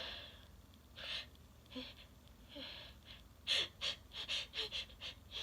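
A person's breath hitching as a sneeze builds. A few soft breaths come first, then from about three and a half seconds in a run of quick, sharp gasping inhales, several a second.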